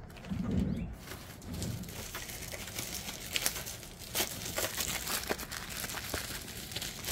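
Packaging being handled off-camera, crinkling and rustling with many scattered light clicks. Two soft low sounds come in the first two seconds.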